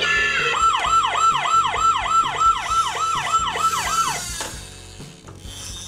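Robocar Poli toy police car's electronic siren sound effect played through its small speaker: a fast wail, each cycle a quick rise and fall in pitch, repeating about three times a second. It stops about four seconds in.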